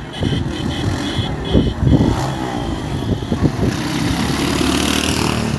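A motor vehicle's engine running close by, with a rushing noise that swells over the last two seconds.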